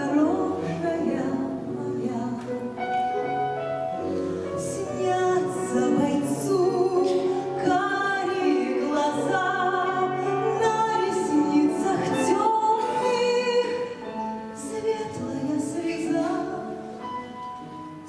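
A song performed live: voices singing over instrumental accompaniment, with no clear words.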